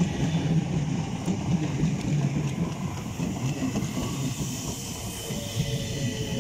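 South Western Railway Class 455 electric multiple unit running past on the adjacent track, a steady rumble of wheels on rail.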